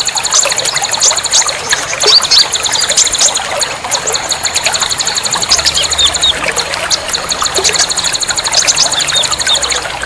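Many small songbirds chirping and trilling over trickling water, with a fast, steady ticking trill high up that runs through most of it. This is the kind of bird-therapy track played to get caged birds that have stopped singing to sing again.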